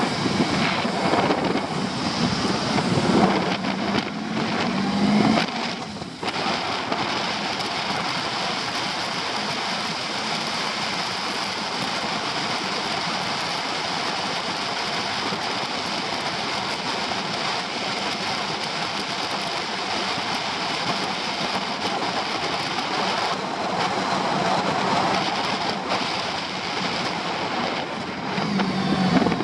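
Wind rushing over the microphone and road noise from a Honda Pan-European ST1100 motorcycle riding downhill, with the bike's V4 engine note rising and falling in the first few seconds and again near the end. Through the middle it is mostly an even wind rush.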